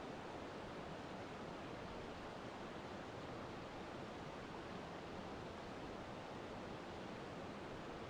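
Steady, even rushing noise with no changes, heavier in the low and middle range than in the highs: a constant masking noise track for sleep.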